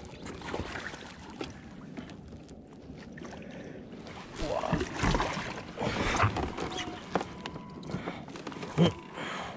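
A hooked bass being brought to the boat and landed: irregular splashing and handling noises, louder in the second half, with one sharp loud sound near the end.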